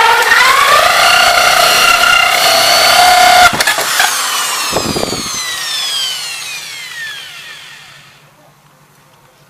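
Electric drill with a hole saw cutting a round hole through a UPS case, its motor whining steadily. A couple of sharp clicks come about three and a half seconds in, then the whine falls away as the motor spins down and stops over about four seconds.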